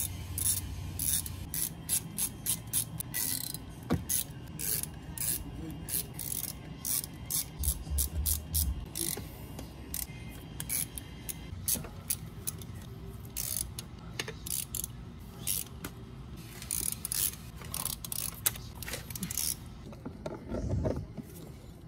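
Hand ratchet wrench clicking in quick runs while bolts on a Mercedes OM642 V6 diesel's intake manifold are loosened; the clicking stops shortly before the end.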